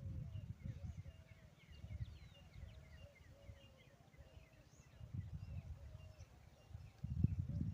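Peahen calling: a series of short, repeated arching notes in the first three seconds or so, with small birds chirping higher up and a low rumble on the microphone that swells near the end.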